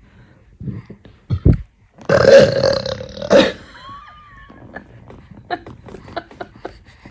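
An elderly woman lets out a loud, drawn-out burp about two seconds in, lasting over a second. It is preceded by a short, low thump.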